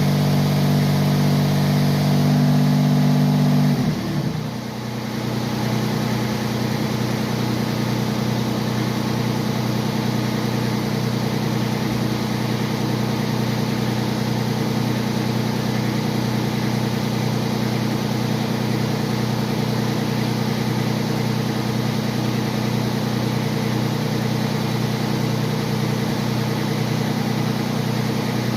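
Grasshopper mower engine running steadily at a higher speed, then dropping quickly about four seconds in to a lower, steady idle that keeps running.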